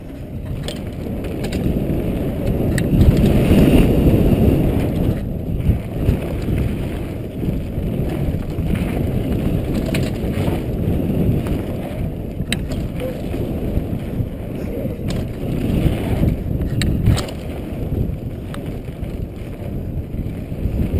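Mountain bike descending a dirt trail at speed, heard from a helmet-mounted camera: a loud, continuous low rush of wind buffeting and tyre rumble that swells and fades. A few sharp rattles and clicks from the bike over bumps cut through it.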